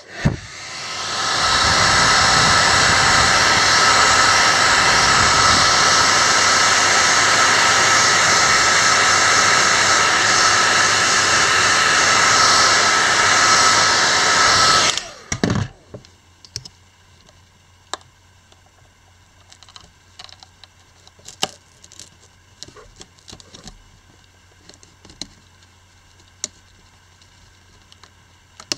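Hair dryer running steadily for about fifteen seconds, blowing hot air onto the opened phone's battery to soften its adhesive, then switched off. For the rest of the time there are scattered light clicks and taps as hands work at the phone.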